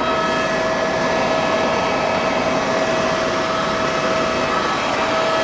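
Eurocopter helicopter in flight, heard from inside the cabin: steady engine and rotor noise with a constant whine on top.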